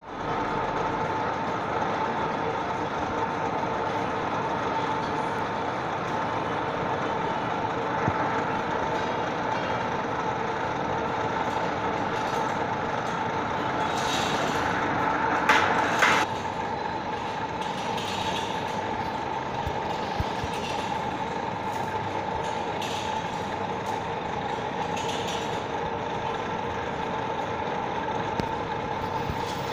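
Nut-and-screw-type plano milling machine running with a steady motor and gearing hum. A brief, louder grating noise comes a little past halfway through.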